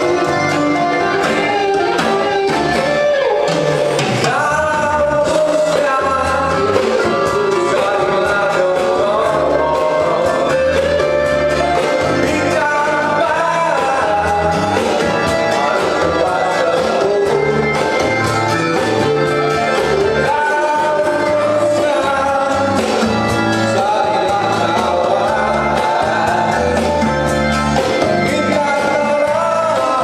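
A man singing into a handheld microphone over instrumental backing music with a steady, regular low beat.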